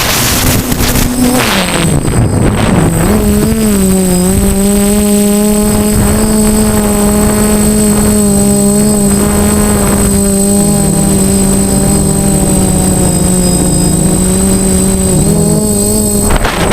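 DJI F450 quadcopter's electric motors and propellers running with a steady hum. The pitch dips in the first few seconds, then holds nearly level.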